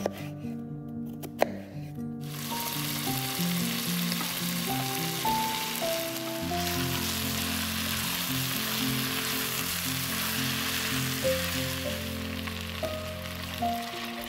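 A few sharp taps of a chef's knife cutting potato on a wooden board, then, from about two seconds in, diced potatoes and sautéed vegetables sizzling steadily in hot oil in a stainless steel saucepan, over background music. The sizzle fades near the end.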